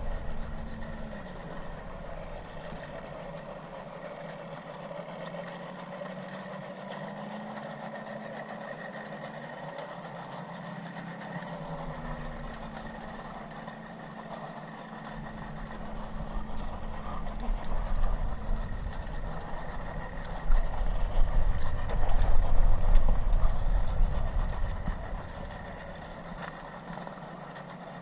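Outboard motor of a boat running steadily under way, its pitch drifting slightly up and down, as it tows a sailboat. A louder low rumble swells in about halfway through and dies down near the end.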